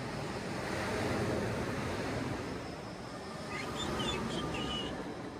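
Sea surf washing ashore as a steady rushing noise that swells twice, with a few short high chirps about four seconds in.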